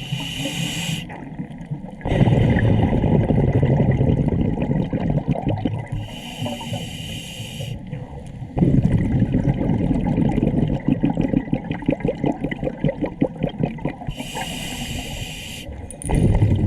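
Scuba diver breathing through a regulator underwater: three short hissing inhalations, each followed by a longer rush of bubbling exhaust bubbles.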